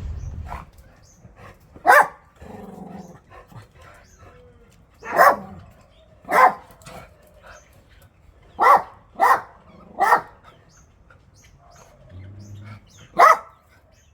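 A dog barking: about seven short, sharp barks spaced unevenly, a couple of them in quick succession.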